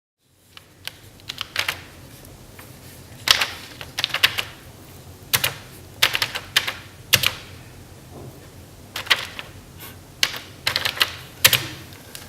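Typing: sharp key strikes in short, irregular runs with pauses between them, over a faint steady low hum.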